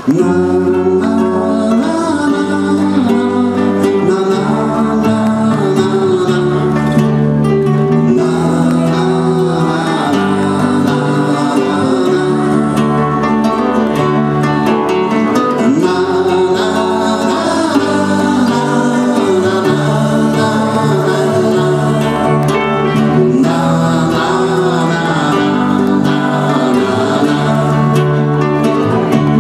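Live acoustic band playing a song: several acoustic guitars strummed and picked over a bass guitar, with men singing.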